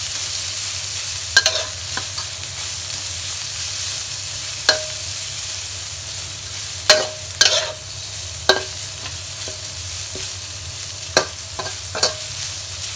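Shiitake mushrooms and ginger sizzling in a little oil in a wok, being stir-fried to bring out their fragrance. There is a steady hiss, with the spatula knocking and scraping against the wok at irregular moments, some knocks leaving a brief metallic ring.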